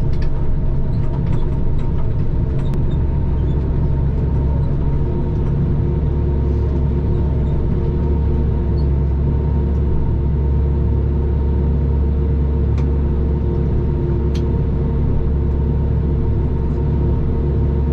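Diesel engine of a Prinoth Primetech 175 tracked mulcher running steadily. Its low drone grows deeper and stronger about three seconds in, then holds.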